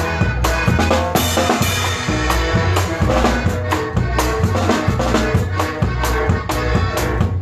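A live norteño-style conjunto band playing, with a steady drum-kit beat and bass drum over a sustained bass line.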